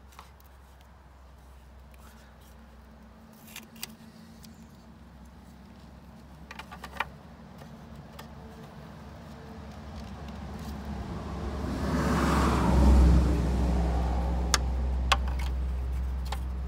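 A car drawing near: its sound builds from about halfway through to its loudest about two-thirds in, then holds as a low rumble. A few small clicks of plastic taillight parts being handled.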